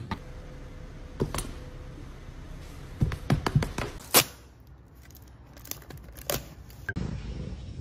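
A scatter of short, sharp clicks and light taps, several in quick succession about three to four seconds in, from a roll of packing tape and a taped cardboard box being handled.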